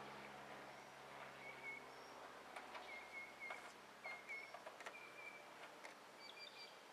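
Faint outdoor ambience with a bird chirping short repeated notes in the background, and a few faint ticks.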